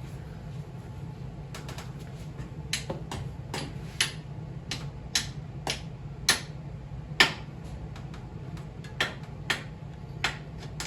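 Irregular sharp metallic taps, about fifteen over several seconds, the loudest near the middle: a hammer knocking at a stuck engine-mount bolt on a Triumph Tiger Cub motorcycle frame. A steady low hum runs underneath.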